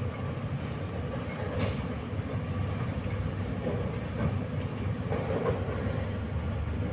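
Distant approaching train: a steady low rumble with a few faint clanks from the wheels on the track.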